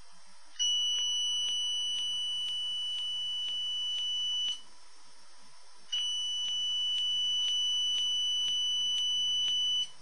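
A steady high-pitched electronic tone sounds twice, each time for about four seconds, with faint clicks about twice a second running through it.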